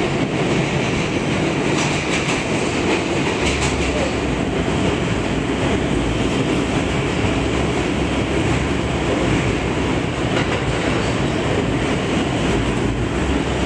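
R160A subway train running at speed through a tunnel, heard from inside the car: a steady rumble and hiss of wheels on rail, with some clicking in the first few seconds.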